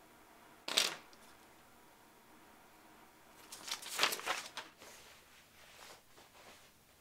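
A brief, sharp scrape from a snap-off utility knife worked against a sheet of paper about a second in. Around four seconds in comes about a second of paper rustling and sliding across a wooden desk.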